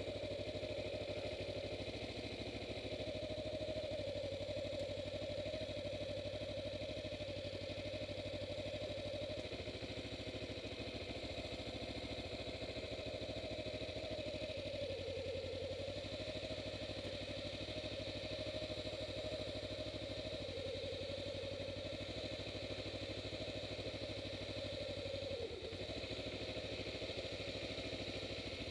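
Kawasaki Ninja 250R's parallel-twin engine running steadily, its note wavering slightly, with a brief sharp dip in pitch a few seconds before the end.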